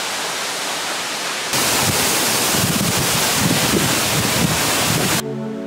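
Waterfall pouring, a steady rushing hiss. About a second and a half in it turns louder and closer, with wind rumbling on the microphone. Music comes in near the end.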